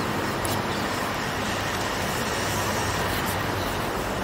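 Steady background noise with a low hum, even throughout, with no distinct knocks or clicks standing out.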